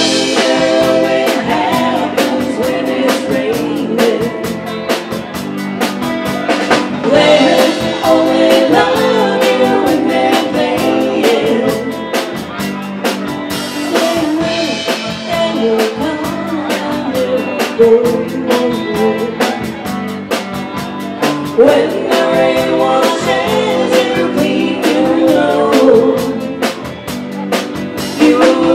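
Live blues-rock band playing: electric guitars and a drum kit keeping a steady beat, with a woman singing over them.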